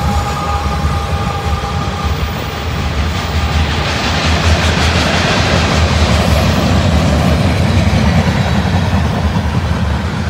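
Freight train of covered hopper cars rolling past close by: steady rumble and clatter of steel wheels on the rail, swelling a little in the middle. A thin whine fades out in the first two seconds.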